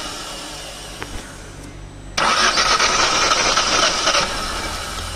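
Hyundai Grand i10 engine turned over by its starter motor in a burst of cranking about two seconds in, lasting about two seconds, without catching: it is being cranked to bring up oil pressure after a crankshaft repair.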